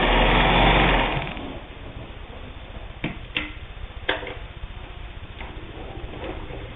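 Pfaff 130 sewing machine stitching fast through wool-blend fabric, stopping about a second in. A few sharp clicks and knocks follow.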